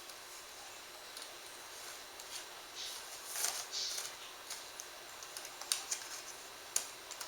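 Plastic laptop screen bezel being worked loose by hand: faint scraping and rustling of plastic, with a few small sharp clicks from its clips near the end.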